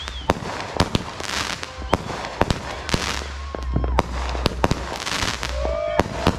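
Aerial fireworks going off: a rapid, irregular series of sharp bangs with crackling between them as the shells burst.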